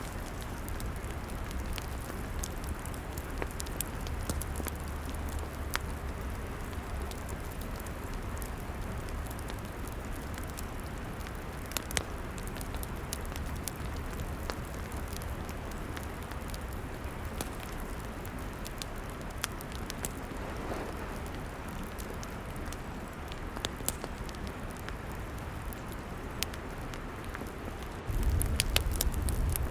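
Log fire burning: a steady hiss with scattered sharp crackles and pops. Near the end it suddenly gets louder and fuller, with a deeper rumble.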